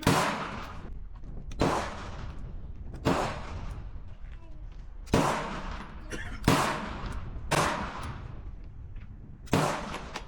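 Seven single gunshots fired at an uneven pace, about one every one to two seconds, each trailing off in a short echo.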